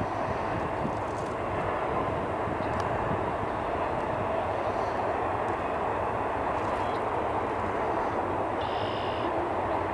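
Double-stack container cars of a freight train rolling past: the steady rumble and rushing noise of steel wheels on the rails, with a few faint clicks. A brief high tone is heard near the end.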